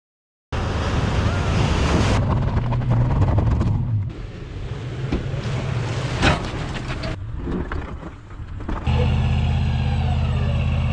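Pickup truck engine running as it drives, with wind noise on the microphone, in several short clips that change abruptly. A sharp knock about six seconds in is the loudest moment.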